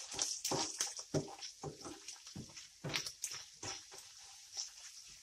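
Wooden spoon stirring frying ground beef mince with onion and tomato paste in a frying pan: irregular scraping strokes, two or three a second, over a faint hiss.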